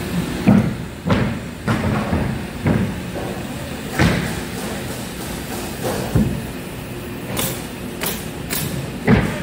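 Irregular heavy thuds on a wooden floor deck as OSB sheathing is laid and fastened over the floor joists, with three sharp snaps in quick succession near the end, typical of a pneumatic stapler driving staples into the OSB.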